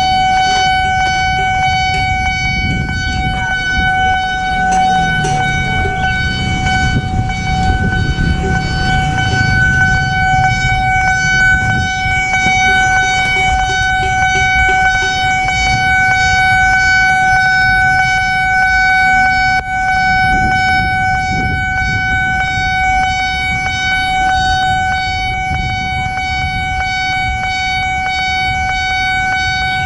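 Level-crossing alarm of the Nippon Signal type sounding as one steady, loud high tone throughout, the warning that the barriers are down for an approaching train. A low rumble runs underneath.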